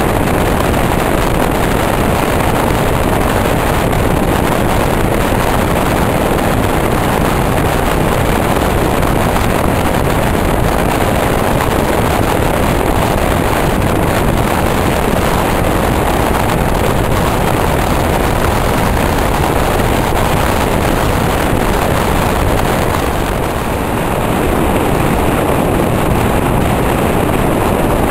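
Steady rumble and rushing noise of a passenger train running at speed, heard from inside the carriage by the window, dipping briefly about three-quarters of the way through.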